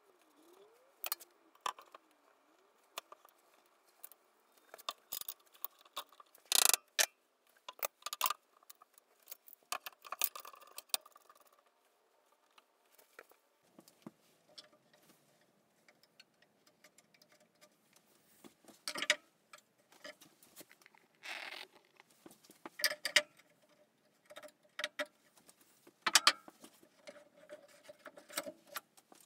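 Irregular clicks, knocks and metallic rattles of metal bar clamps being set against a wooden cabinet carcass and tightened to glue on a face frame piece, with short scrapes in between; the loudest knock comes about seven seconds in.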